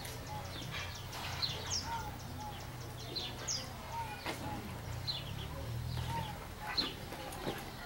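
Birds chirping over and over in short, high calls, with a steady low hum underneath and a few soft knocks scattered through.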